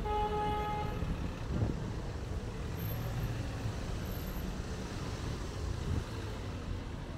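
A vehicle horn toots once for about a second at the start, over the steady low rumble of street traffic.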